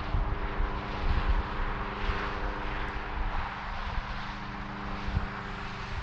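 Interstate traffic noise: a rushing hiss of vehicles that swells and fades as they pass, with one engine droning steadily at an even pitch underneath.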